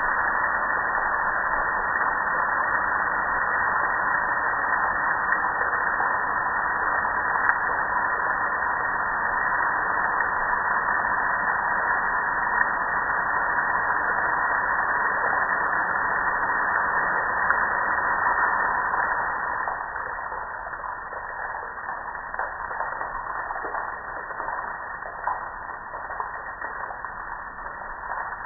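Water spraying onto a soapy gas grill and streaming off it, a steady rushing hiss that gets quieter about two-thirds of the way through.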